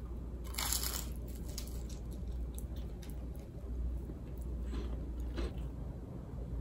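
Crisp-toasted smoked salmon toast bitten into with a loud crunch about half a second in, then chewed with smaller crunches, and a few more near the end.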